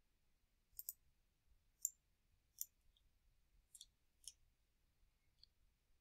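Computer mouse buttons clicking about nine times at irregular intervals, some in quick pairs, as parts are selected in a CAD program.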